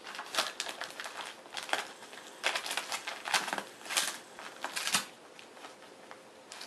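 Gift-wrapping paper crinkling and tearing in irregular crackling bursts as a miniature pinscher bites and pulls at it, dying down about five seconds in.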